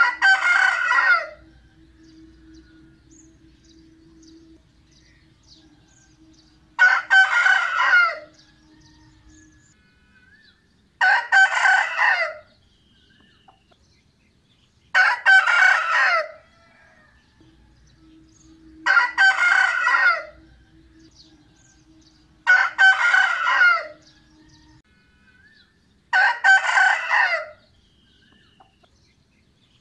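Rooster crowing cock-a-doodle-doo seven times. Each crow lasts about a second and a half, and the crows come every few seconds.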